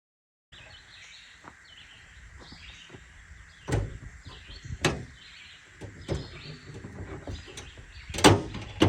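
Several sharp clunks, the loudest about four, five and eight seconds in, from an electrical service disconnect switch being thrown and handled, over birds chirping.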